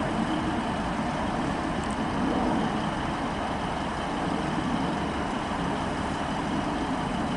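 Class 153 diesel multiple unit pulling slowly away from the platform, its underfloor Cummins diesel engine running with a steady drone.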